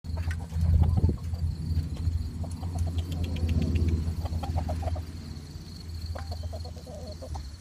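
Chicken clucking in several short runs of quick clucks, over a steady low rumble that is loudest in the first five seconds.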